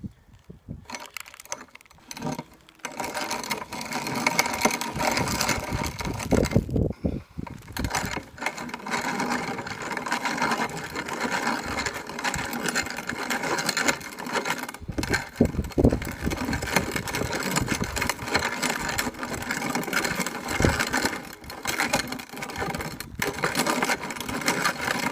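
Hand-cranked grain mill grinding dried corn kernels between its stones, set fine for a meal-like grind: a continuous gritty crunching with many small clicks, starting about three seconds in and dropping out briefly a couple of times. Wind gusts rumble on the microphone.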